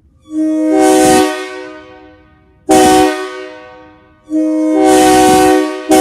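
Locomotive air horn sounding a chord in a long blast, a short blast and another long blast, with a short blast starting at the very end. Each blast is cut off sharply and trails away in a long echo.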